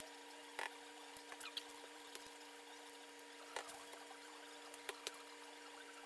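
Tie-dye being squeezed from squeeze bottles onto damp cotton towels and the wet fabric pressed by hand: faint liquid pouring and dabbing with a few soft taps, over a steady hum.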